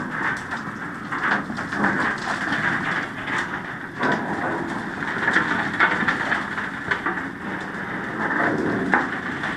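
Coal pouring out of the open bottom doors of hopper cars onto a steel unloading-pit grate: a steady, dense crackling rush of falling lumps.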